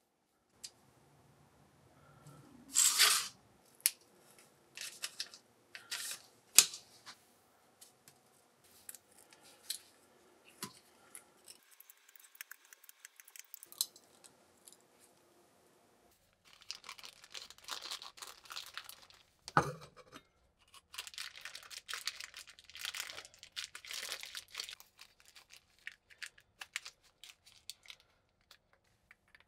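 Small handling sounds: light clicks and taps, a short loud rustle about three seconds in, and stretches of crinkling from a small plastic zip bag being squeezed and pushed into the threaded hollow handle of a survival knife.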